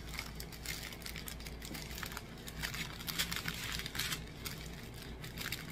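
Small clear plastic bags of diamond-painting drills crinkling and rustling as they are handled, in a run of irregular crackly clicks.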